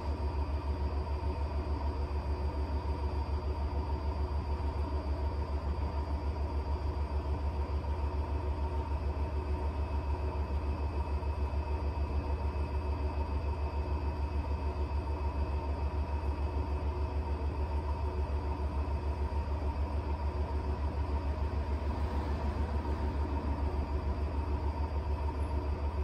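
Electrolux W75MP washer-extractor spinning at high speed in its final extraction: a steady low hum with a fast, even throb and a thin steady whine above it.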